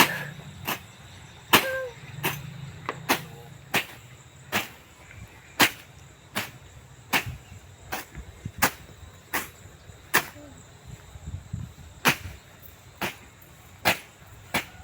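A steady series of sharp chopping blows, about one every three-quarters of a second, as firewood is chopped by hand.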